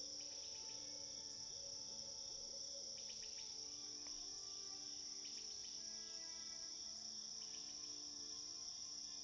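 Faint insect chorus, a steady high shrill drone with short bursts of rapid chirping about every two seconds, over soft background music.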